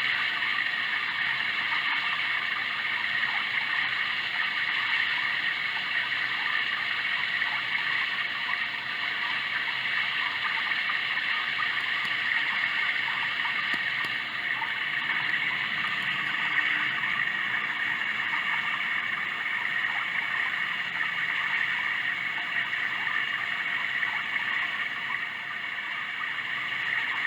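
Sound Oasis ambient sound machine playing a steady rushing-water track, like a stream.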